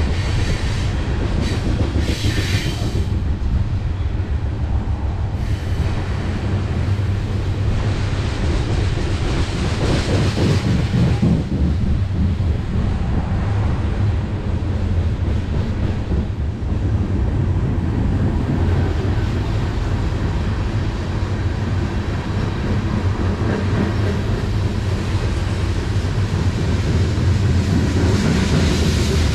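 Loaded coal train's open hopper cars rolling past close by, their steel wheels running steadily on the rails.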